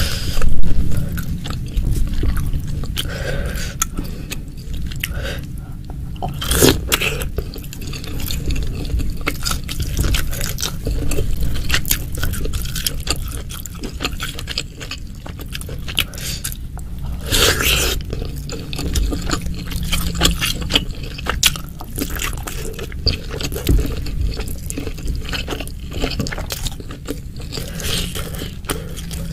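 Close-miked eating of meatballs and beef ribs in a spicy chilli broth: chewing and crunching, utensils scraping the bowl, and wet sounds of broth. There are many small clicks and two louder, longer noisy moments, about a quarter and three fifths of the way in.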